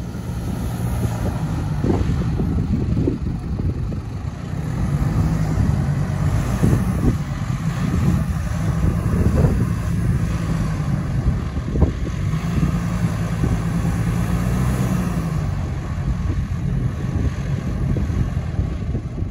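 Mitsubishi Pajero Sport's engine revving up and down several times while the SUV is stuck in soft sand, the driver trying to drive it out.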